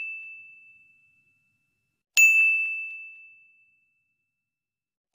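A high, single-pitched ding sound effect, like a notification bell, repeating about every three seconds. Each ding strikes sharply and rings out, fading over about a second: one is still dying away at the start, a new one sounds about two seconds in, and another comes right at the end.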